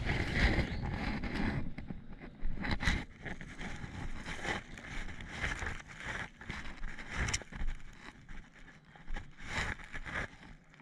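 Footsteps and the rustling of plants and clothing as a person walks along a trail through tall undergrowth, in uneven, irregular bursts.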